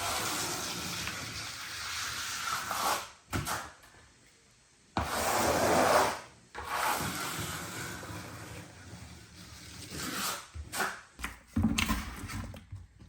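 Scraping and rubbing noises from hand work on the floor, in several stretches that start and stop abruptly, with a brief near-silent gap about four seconds in.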